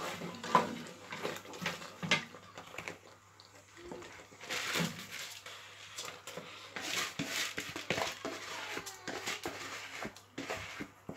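Wooden spoon stirring and scraping in a large stainless steel pot as washed rice is mixed into tomato stew for jollof rice, with irregular knocks against the pot and bursts of scraping.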